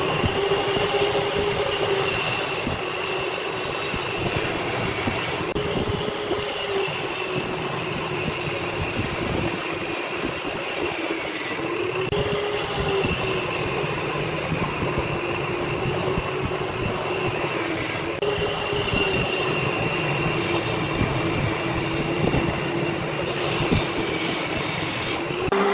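Woodworking power machine running steadily while cutting wood, with a high whine that sags and recovers as the load on it changes.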